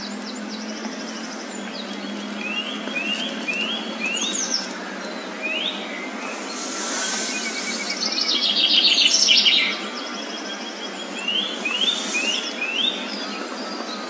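Several woodland songbirds singing and calling: runs of short rising chirps, with a louder rapid trill a little past the middle.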